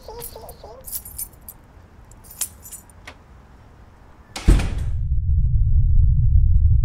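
Short bright metallic jingling rattles in the first half. About four and a half seconds in, a sudden loud hit is followed by a steady, deep rumbling drone.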